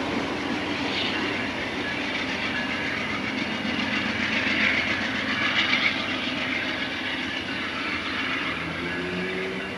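Amtrak passenger train pulling away, its cars' wheels running over the rails as the train moves off down the track.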